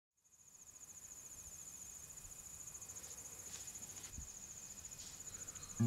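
Crickets trilling, a faint steady high pulsing chirr that fades in just after the start, over a soft field ambience.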